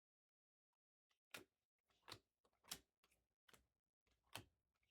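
Topps Chrome trading cards being flipped one at a time through a pack: five short card snaps spaced under a second apart, starting a little over a second in.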